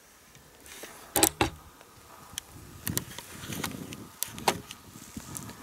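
Hand-held camera handling noise: a few sharp knocks and clicks, the loudest about a second in, with rustling of clothing against the microphone as the camera is turned round.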